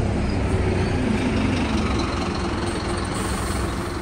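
City bus's engine running with a steady low rumble as it pulls in to the stop and idles.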